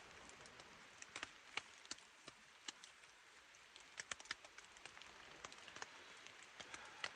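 Light, irregular drops of water tapping on the shelter's fabric, a scattering of sharp ticks over a faint steady hiss.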